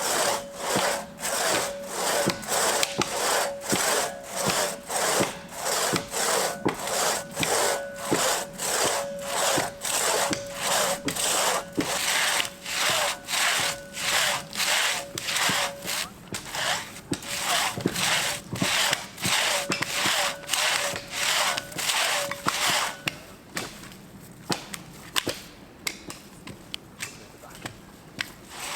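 Hand saw cutting through a spruce trunk in a steady back-and-forth rhythm of about two strokes a second, the blade ringing on each stroke. The sawing stops about 23 seconds in, leaving only a few light knocks, and starts again at the very end.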